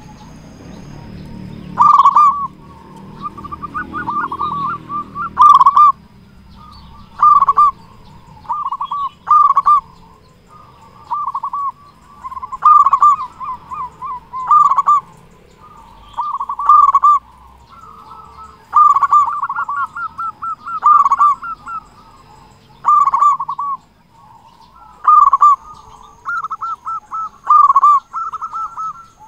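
Zebra dove (perkutut) cooing: short phrases of rapid, stuttering notes, repeated every second or two.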